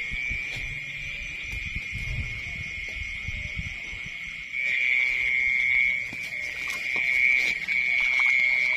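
Insects trilling continuously in a high, steady buzz that grows louder about halfway through, over low rustling, with a few sharp clicks near the end.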